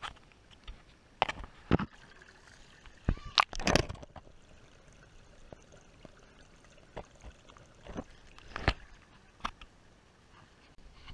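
Irregular knocks and scuffs of an action camera being handled and carried over creek-bed rocks, the biggest cluster about three to four seconds in, over a faint wash of running water.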